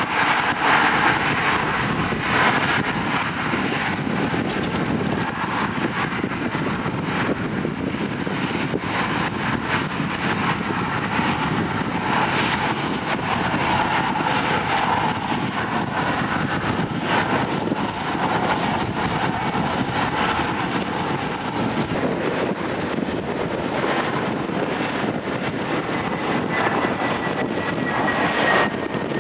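Jet engines of a Ryanair Boeing 737 running at low power as it taxis, a steady rushing engine noise with wind gusting on the microphone. Near the end an easyJet Airbus A320 approaches to land, with a faint engine whine falling slightly in pitch.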